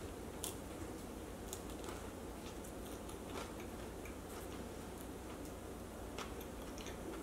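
A person chewing a bite of fried vegetable sambusa close to the microphone: a few scattered, sharp crunches and mouth clicks from the pastry shell over a steady low hum.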